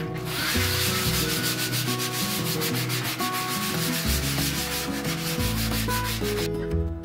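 Crumpled plastic cling wrap scrubbing detergent over a stainless-steel sink, a rasping rub in quick repeated strokes that stops shortly before the end.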